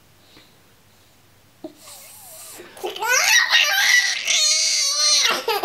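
A baby laughing, high-pitched, starting softly about one and a half seconds in and loudest from about three seconds in until shortly before the end.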